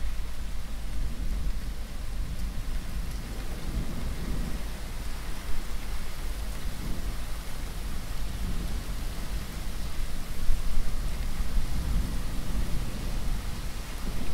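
Thunderstorm: rain falling steadily, with low rumbles of thunder swelling and fading several times.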